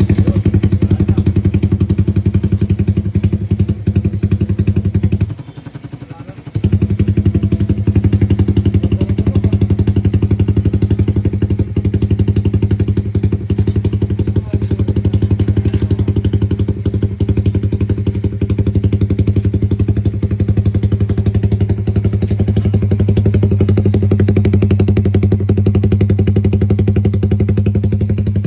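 Suzuki Raider Fi single-cylinder motorcycle engine idling through an open Jecspeed 'super open' exhaust, a loud, steady, even pulsing. The sound drops away briefly about five seconds in, then resumes at the same steady idle.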